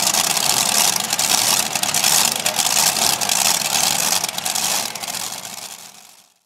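Modified pulling tractor's supercharged engines idling, a loud steady mechanical noise that fades out near the end.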